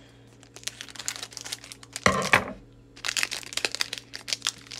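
Foil wrapper of a Japanese Pokémon booster pack crinkling and crackling as it is cut with scissors and pulled open by hand, with a louder rustle about two seconds in.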